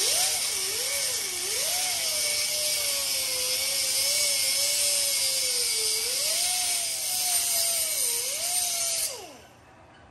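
Handheld die grinder with a small grinding wheel running with a loud hiss, its pitch wavering up and down as the wheel is pressed against and eased off a metal edge. It grinds down the rough, chopped-up edge of a pinball cabinet's metal glass channel. About nine seconds in it is released and spins down.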